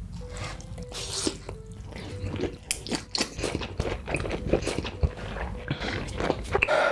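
Close-miked mukbang eating: a big mouthful of cheese-topped noodles in red sauce bitten off and chewed, with dense, irregular wet clicks and crunches.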